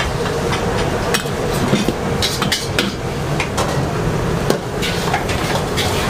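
Metal cookware clinking: a steel ladle knocks against a wok and nearby pans in short, sharp clinks, scattered irregularly over a steady low rumble.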